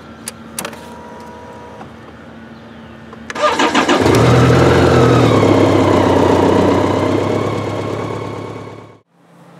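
A vehicle engine starts after a couple of clicks, about three seconds in, then runs loudly and fades away shortly before the end.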